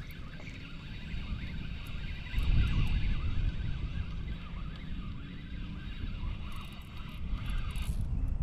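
Wind buffeting the microphone as a low rumble, louder from about two and a half seconds in, with a fainter hiss and a few light ticks over it.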